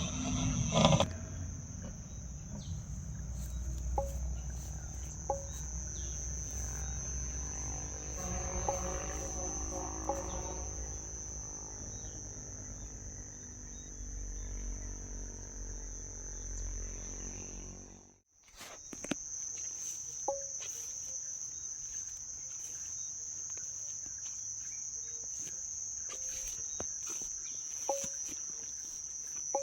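Steady high-pitched insect trill over a low rumble, with a few faint clicks. Everything drops out briefly about eighteen seconds in, then the trill resumes.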